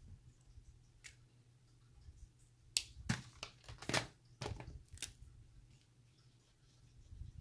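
Art pens and pencils being handled on a desk: a single click about a second in, then a quick run of sharp clicks and clatters from pens being put down, picked up and uncapped as the colour is changed.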